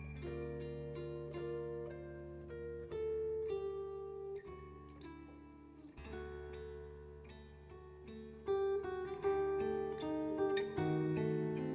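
Solo jazz acoustic guitar playing an instrumental break: picked melody notes over held bass notes, with louder struck chords from about eight and a half seconds in.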